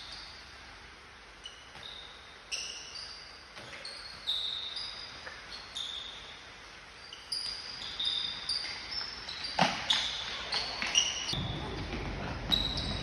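Shoes squeaking on an indoor court floor in short, high squeals, over and over, as players run and turn, with the ball being kicked and bouncing. The thuds grow louder and more frequent near the end.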